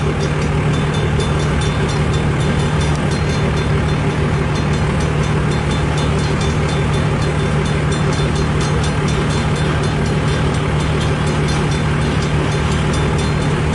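Long mixed-freight train's cars rolling past, a steady rumble of wheels on rail with a constant low hum.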